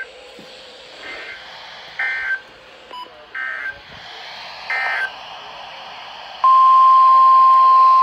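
Weather radio receivers playing a series of short digital warbling data bursts, about one every second and a half: the SAME end-of-message code that closes a NOAA Weather Radio alert test. About six and a half seconds in, a loud steady single-pitched tone starts and holds.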